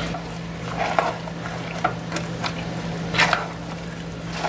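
A spoon stirring a thick, creamy vegetable filling in a non-stick pan. A few irregular wet scrapes and squelches are heard over a steady low hum.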